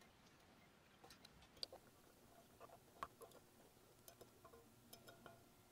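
Near silence with a few faint, scattered clicks as hands handle the metal frame and screws of a resin 3D printer vat.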